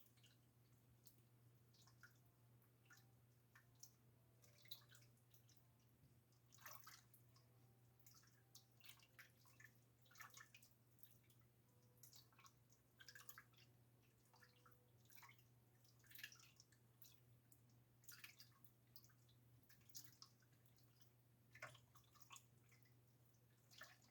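Near silence: a low steady hum with scattered faint ticks and pops from a pot of pickle brine heating on an electric stove.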